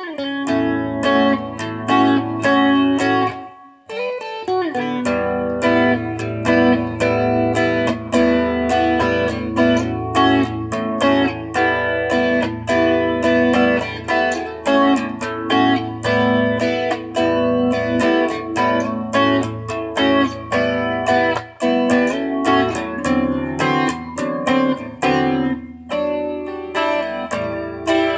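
Solo guitar playing an instrumental tune: a steady run of picked notes over a held low bass, with a short break about four seconds in.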